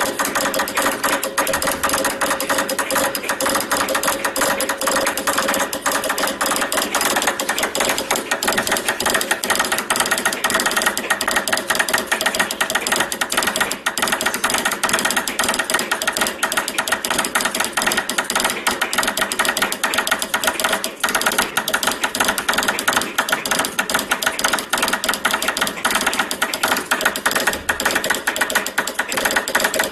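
Morse key clicking rapidly and steadily as code is tapped out, a dense run of sharp clicks that goes on without a break.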